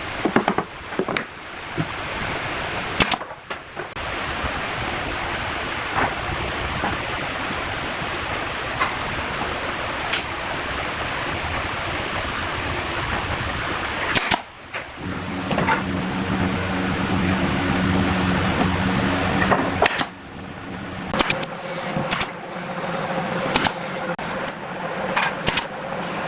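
Power tools working wood: a steady hiss for about ten seconds, then an electric motor running with a steady hum, with scattered knocks and clicks.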